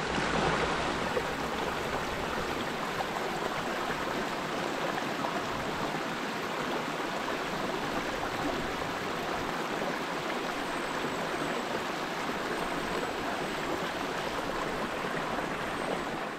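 Steady rushing of flowing water, an even hiss with no pitch, with a few faint high chirps around the middle.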